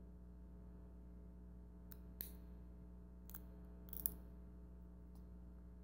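A few short, faint cracks and snaps of cooked crab shell being broken and pulled apart by hand, about two to four seconds in, over a low steady hum.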